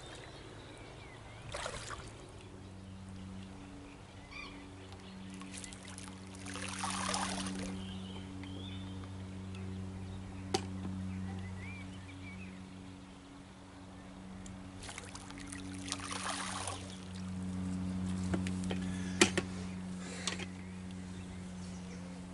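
Water splashing in two spells of about two seconds each, some ten seconds apart, over a steady low hum, with a few sharp clicks in between.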